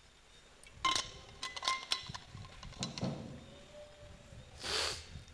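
A few light clinks and knocks with a brief ring: one about a second in, a cluster around two seconds and another near three. A short breathy rustle follows near the end.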